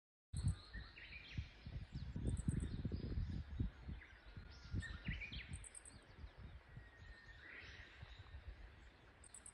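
Outdoor field ambience: a few short bird chirps, about a second and a half, five and seven and a half seconds in, over a low rumble that is loudest in the first four seconds.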